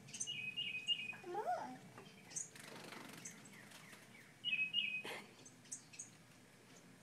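Wrens calling during fledging: a short, rapid trill near the start and again about two-thirds through, with thin high chirps scattered between.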